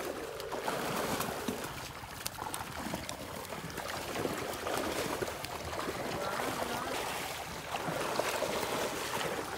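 Shallow muddy pond water sloshing and splashing steadily, stirred by people wading through it.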